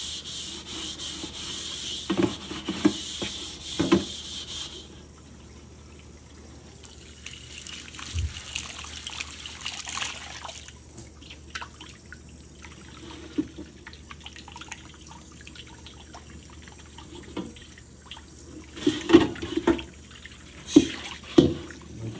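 Gloved hands scrubbing a soapy carbon-steel wok in a stainless steel sink, cleaning off rust. A tap runs at first and stops about five seconds in. Near the end come several louder knocks and splashes as the wok is handled and rinsed.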